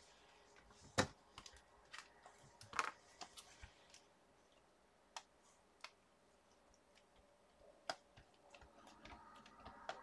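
Sparse light clicks and taps of clear stamps and a stamping platform being handled, the sharpest about a second in and another near three seconds, over faint room tone.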